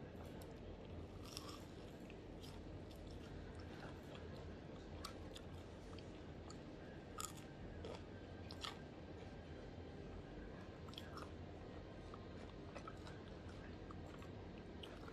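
A person chewing crispy fried tofu and instant fried noodles, with faint scattered crunches at irregular intervals.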